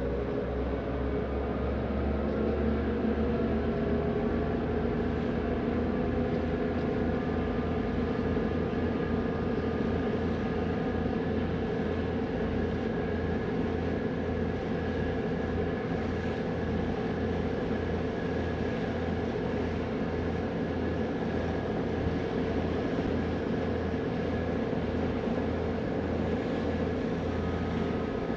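A passenger ferry's engines droning steadily under way, with a low hum and several held tones.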